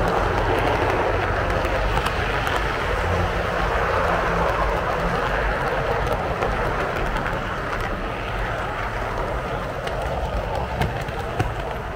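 Train coaches rolling past on the track: a steady rumble of wheels on rails with faint scattered clicks, easing off slightly towards the end.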